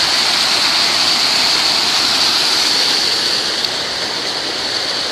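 Water rushing over a small creek waterfall, a loud, even hiss that eases slightly about three and a half seconds in.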